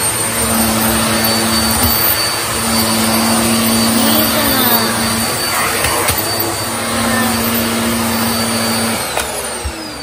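Freshly repaired old Mitsubishi vacuum cleaner running with a steady rushing suction noise and a hum that comes and goes. About nine seconds in the motor winds down, its whine falling in pitch.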